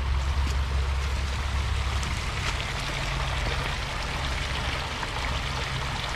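Small woodland stream running over a low step of rocks: steady splashing, trickling water. A low rumble sits under it for the first few seconds.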